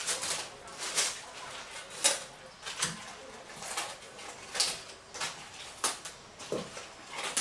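Bok choy leaves being snapped off the stalk by hand: a series of about a dozen crisp snaps with leafy rustling, one every half second to a second.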